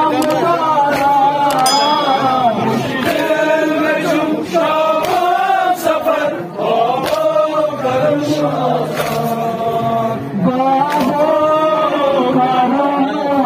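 Male reciters chanting a noha (Shia lament) in unison through microphones and loudspeakers, with sharp chest-beating (matam) slaps keeping a regular beat under the singing.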